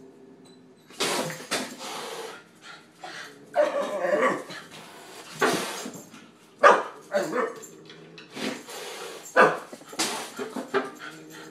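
Puppy barking in irregular bursts, several barks close together and then short pauses, starting about a second in.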